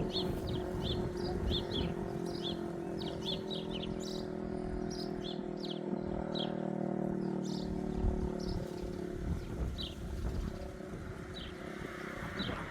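Small birds chirping again and again, over wind buffeting the microphone. A steady low hum of several tones underneath dies away about nine seconds in.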